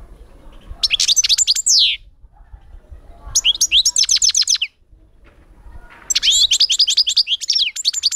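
European goldfinch singing: three bursts of quick, high twittering notes, each lasting a second or more, with short pauses between them.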